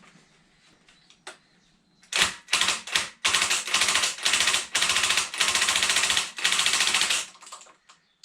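Ratchet wrench clicking in a series of quick runs of rapid clicks, each under about a second, starting about two seconds in and stopping near the end, as a manifold nut is worked off.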